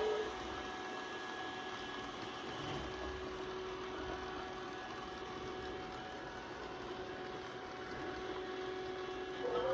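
Yeedi robot vacuum cleaner running: a steady whir of its suction fan and brushes with a constant hum.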